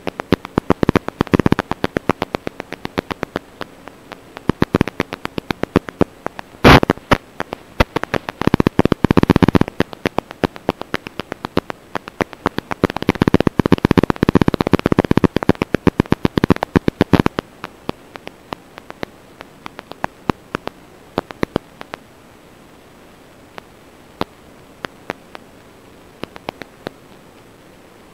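Crackling static and hiss from an analog FPV video link's audio: dense bursts of clicks over a steady hiss. About two-thirds of the way through the clicks thin out to scattered ones over a fainter hiss.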